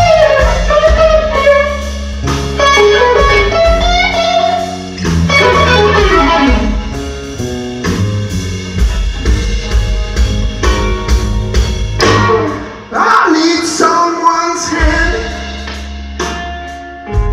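Live blues-rock band playing: an electric guitar lead with bent, sliding notes over electric bass guitar and a drum kit.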